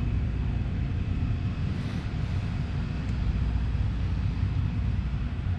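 Steady low rumble of wind buffeting the microphone outdoors, with no distinct events.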